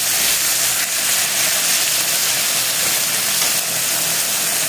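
Frying pan sizzling steadily: onion, garlic, spices and boiled potatoes frying in hot oil.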